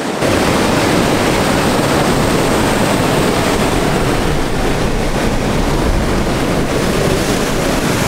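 Water rushing steadily as the river pours over sandstone rocks into a small waterfall, a dense, unbroken noise that grows deeper and fuller a moment in.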